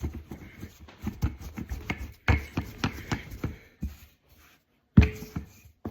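Rolling pin working a slab of pasta dough on a floured table: a run of irregular knocks and rubbing thuds, with two louder thumps about two and five seconds in.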